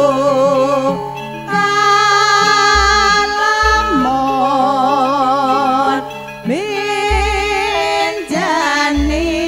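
Javanese campursari langgam song: a female singer holds long notes with a wide vibrato and slides up into new phrases over deep bass notes and band accompaniment.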